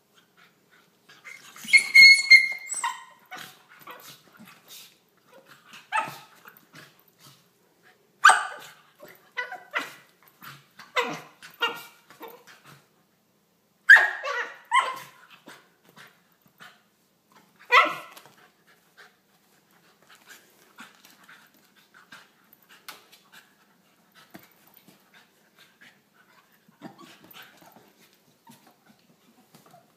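Welsh corgi puppy giving short, high yips and play barks in bursts while play-fighting with a ferret, the loudest about two seconds in and again around eight, fourteen and eighteen seconds. After that only faint rustling and scuffling remain.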